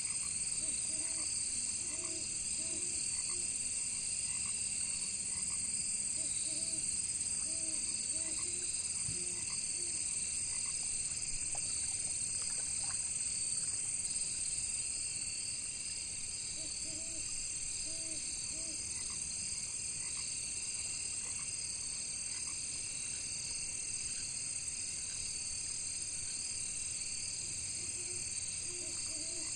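Frogs croaking in short runs of three or four calls, a run every several seconds, over a steady high chorus of crickets and other insects.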